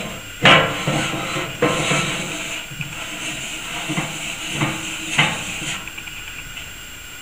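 Metal parts of a boilie extruder being handled and fitted: the aluminium end cap pushed onto the barrel and its pins set in place. Several sharp metallic knocks and scrapes with a brief ringing after each, the loudest about half a second in, dying away after about six seconds.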